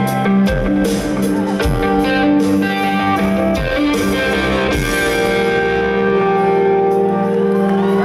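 Live rock band with electric guitar and drums playing the last bars of a song. The drum hits stop about five seconds in and a held chord rings on.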